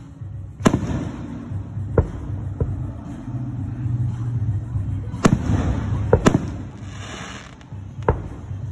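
Aerial fireworks bursting overhead: about seven sharp bangs, two of them close together in the middle, over a continuous low rumble.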